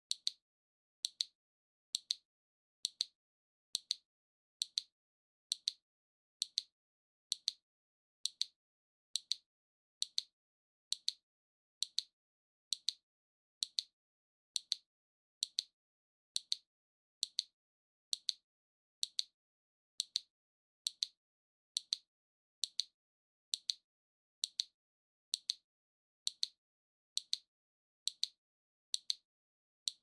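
The waving arm mechanism of a maneki-neko (lucky cat) figurine ticking steadily: one sharp, high click a little under a second apart as the paw swings.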